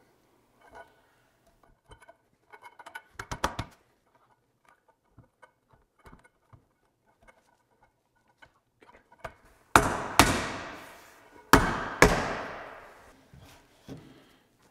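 Four sharp knocks in two close pairs, each ringing out in the wood-panelled room, as the wooden 4x4 top rail is knocked down onto black aluminum spindles. A quick rattle of light clicks comes a few seconds before them.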